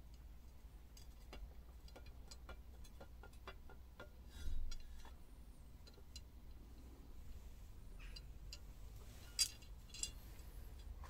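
Scattered light clicks and clinks of metal parts being handled, a steel straightedge against a cast-iron exhaust manifold, with a louder scuff about four and a half seconds in and two sharp clinks near the end.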